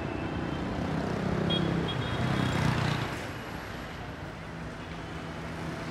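A motor vehicle passing by: a rumble that swells to a peak just under three seconds in, then fades.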